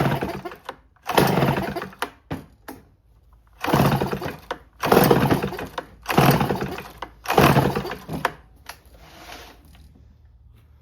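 Homelite C5 two-stroke chainsaw being cranked on its pull-cord starter: six hard pulls about a second each, then a weaker seventh. It doesn't catch and run between pulls.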